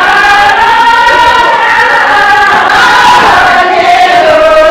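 A group of voices singing a Tibetan circle-dance song together in unison, holding long notes. About three and a half seconds in, the melody steps down to a lower held note.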